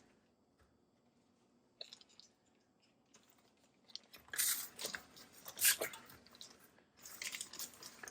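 Paper butter wrapper crinkling and rubbing against a baking pan as the pan is greased, in several short rustling bursts in the second half, after a single light click a little under two seconds in.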